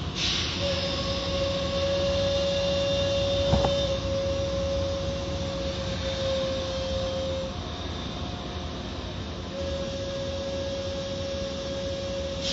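Car wash machinery running: a steady low rumble with a steady whine over it that drops out for about two seconds past the middle, and a single sharp click a few seconds in.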